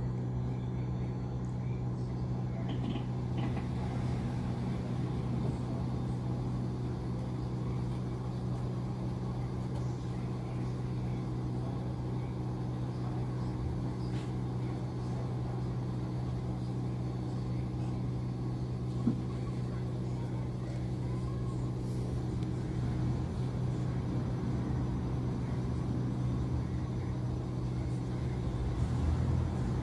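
Steady low hum inside an Alexander Dennis Enviro400H MMC hybrid double-decker bus from its drivetrain, with a single short click about 19 seconds in.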